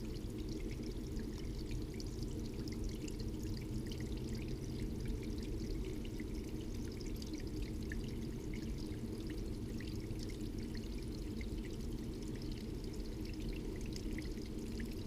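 River water flowing steadily, with a constant low rush and many small splashing, trickling ticks.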